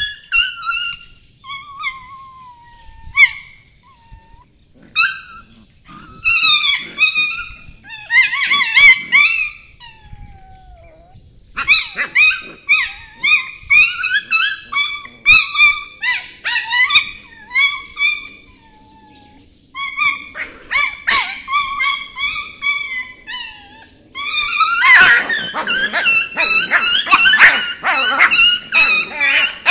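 Puppies yelping and squealing in rough play-fighting, one pinned under the other: short, high-pitched cries in clusters with brief pauses, densest over the last few seconds.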